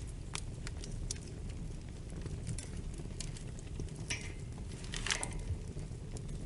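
Wood fire crackling in a fireplace: a steady low rumble of flames with scattered sharp pops and snaps, and a louder flurry of pops about four and again about five seconds in.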